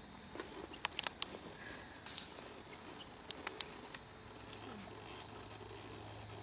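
Steady high chirring of insects, with a few light clicks from handling the airsoft gun: a cluster about a second in and another about three and a half seconds in.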